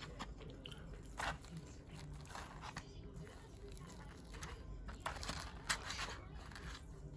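Quiet eating sounds: wooden chopsticks scraping and tapping in a plastic takeaway tray as they break open a breaded cream croquette, with a few brief crisp scrapes and crinkles.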